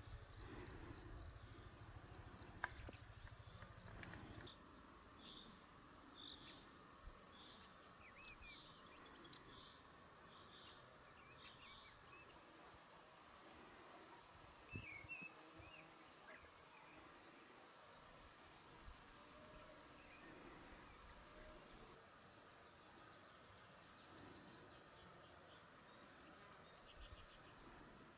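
Crickets chirping in one steady, high, pulsing trill, loud at first and much fainter from about twelve seconds in.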